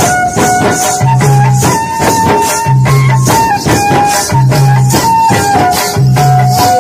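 Rajasthani Holi chang music: a group of chang frame drums beaten by hand in a steady dance rhythm, with a jingling rattle about twice a second and a sustained melody of held notes over it.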